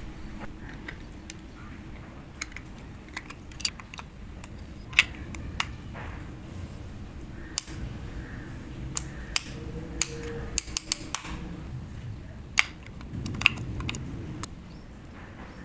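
Irregular sharp plastic clicks and taps from a handheld multimeter and small tools being handled, with a quick run of several clicks about ten seconds in, over a steady low background rumble.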